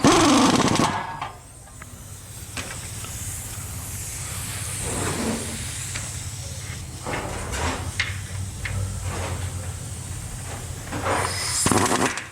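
Air ratchet running down 13 mm nuts on a 4L60 transmission's bell housing: hissing air with the tool's whirr in short runs, loudest in the first second, and sharp clicks of socket and metal between runs.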